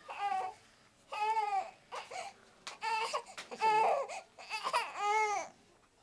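Two-month-old baby crying in a run of about six short, high wails, each under a second, with brief breaths between them.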